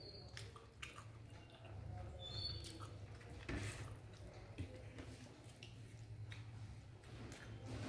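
Quiet eating sounds by hand: small wet mouth clicks and chewing, with fingers mixing rice on a plate, over a low steady hum. A couple of faint short squeaks come near the start and about two and a half seconds in.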